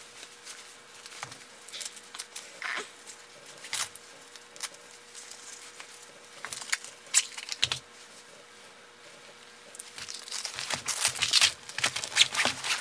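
Scattered rustles and light clicks of clothing being handled as a cap and fingerless gloves are put on, turning into denser, louder crinkling of a plastic bag over the last few seconds.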